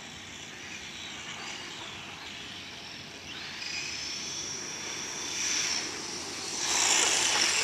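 A 1/10-scale RC monster truck's motor whining. The whine rises in pitch about three seconds in, and the sound grows louder and rougher near the end.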